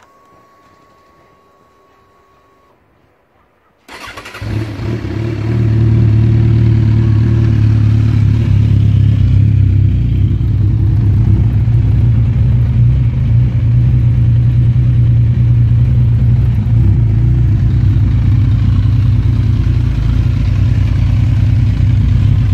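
Kawasaki Z1000's inline-four engine being started about four seconds in, catching and settling into a steady idle through Akrapovič carbon slip-on silencers.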